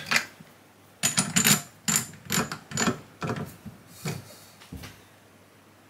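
Drill press's geared chuck being tightened by hand onto a bolt shank: a run of about eight short clicking, grinding strokes of metal on metal, starting about a second in and spread over some four seconds.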